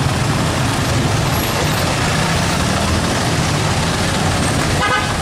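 Light trucks' engines running as they cross a railway level crossing at low speed, with steady road traffic noise. A short higher-pitched tone sounds about five seconds in.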